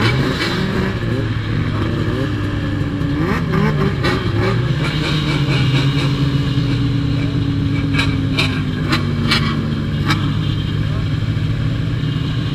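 Snowmobile engines idling and running steadily, led by the close sound of a Polaris Indy Lite 340's two-stroke engine. One engine note slides slowly down in pitch over several seconds midway.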